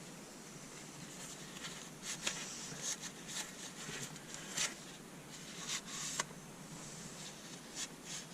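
Scattered light clicks and rustles of handling, irregular and spread over several seconds, over a steady faint hiss.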